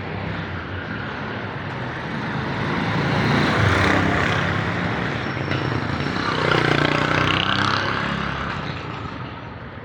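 Street traffic: motor vehicles passing close by, two swelling past about three and a half and seven seconds in.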